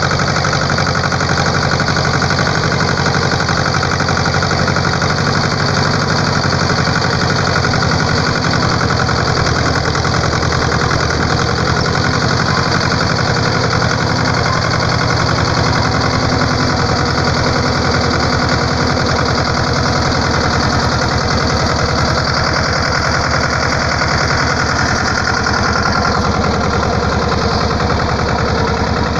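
Vehicle engine running steadily for the whole stretch, heard as a rapid, even pulsing with a constant hiss above it.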